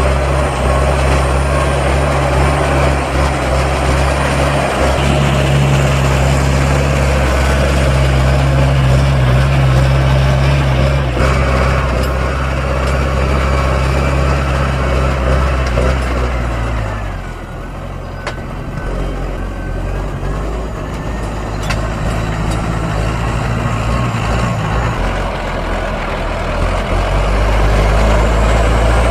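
Claas Arion 430 tractor's diesel engine running steadily while ploughing. Its note drops and eases a little past halfway, then picks up again near the end.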